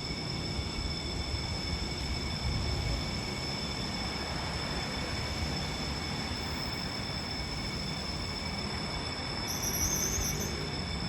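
Emergency alarm bell ringing continuously in one steady, unbroken high-pitched ring, over a low rumble. A brief high screech comes near the end.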